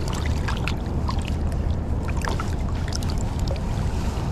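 Steady rush of flowing river water with a low rumble beneath it and scattered small splashes and ticks.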